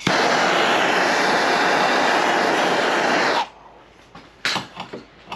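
Handheld torch blowing a steady, loud hiss for about three and a half seconds, then shut off suddenly, heating an aluminum hood panel to soften the metal for paintless dent repair. A single sharp click follows about a second later.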